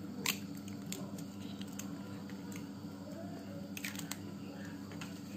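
An eggshell being pulled apart by hand over a mug, giving several faint sharp clicks and crackles as the egg drops in. A steady low hum runs underneath.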